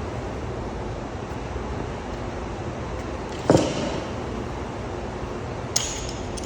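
Steady background hiss with a single sharp knock and a short ring about halfway through, and a fainter click near the end.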